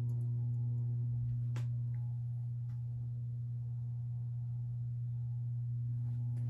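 Hunter 1912 Mission ceiling fan motor running with a steady low electrical hum, just switched back to downdraft. A faint tick comes about one and a half seconds in.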